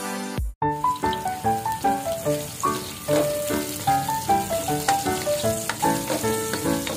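Sliced onions frying with a light sizzle in a pot as a spatula stirs them, under background music: a quick melody of short notes. A louder electronic track cuts off right at the start.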